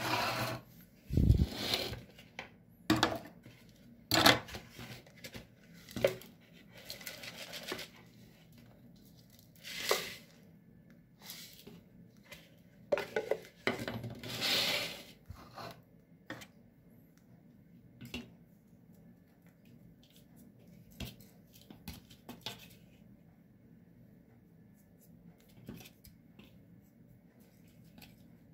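Potting soil being scooped with a plastic pot and poured into a plastic flower pot: knocks of plastic pots against each other, with short rustling pours of soil, most of it in the first half. After that, only a few faint scrapes and clicks.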